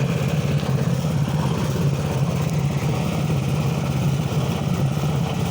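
A 7 hp petrol engine running steadily, driving a homemade walnut hulling machine through a reduction gearbox, with a fast, even pulse.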